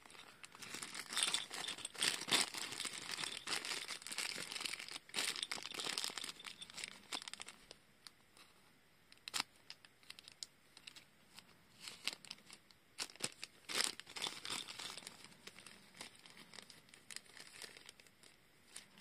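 Thin plastic bag being crinkled in the hand and cut with scissors: irregular crackling and rustling, busiest in the first half, then sparser with a few sharper snips and crackles.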